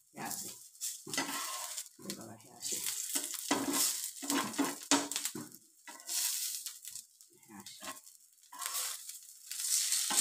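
Potato-poha cutlets sizzling in oil on a hot dosa tawa, the sizzle coming in irregular bursts as the patties are laid down and pressed on the pan.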